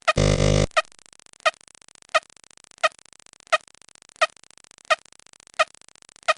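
Sound effects: a short pitched blip repeating evenly about every two-thirds of a second, and one louder buzzy sound effect lasting about half a second near the start.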